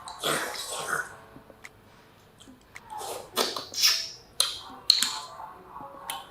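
Close-up eating of spicy shellfish: noisy slurping bursts and sharp clicking of shells, the loudest clicks about four and a half and five seconds in.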